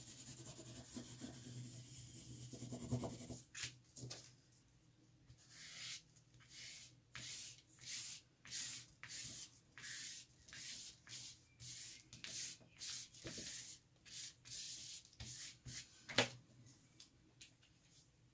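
A thick Lyra Woody crayon scribbling on textured mixed-media paper makes a steady, faint scratchy rubbing. Then a flat brush is swept back and forth across the paper in quick repeated strokes, about three every two seconds. There is a single knock near the end.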